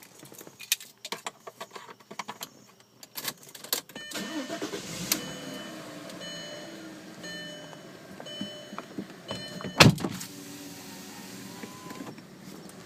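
Clicks and rattles, then the 2002 Volkswagen Passat GLX's V6 engine running from about four seconds in. A high warning chime beeps on and off over it, and there is one loud thump near ten seconds.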